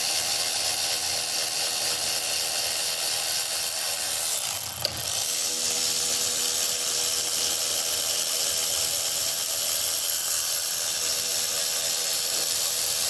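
Steady, even whirring hiss of a running machine, with no rhythm or breaks and a brief disturbance about five seconds in.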